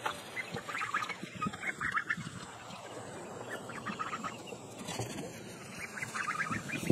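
Backyard poultry flock calling, in quick runs of short chattering notes, with a few knocks about five seconds in and near the end.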